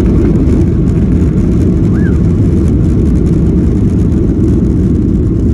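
Steady low rumble inside the passenger cabin of a Boeing 737-800: its CFM56-7B jet engines and the airflow over the airframe.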